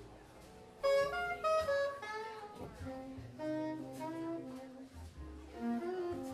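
Live jazz combo: a saxophone comes in about a second in with a quick melodic run of notes, over double bass notes and drum cymbals.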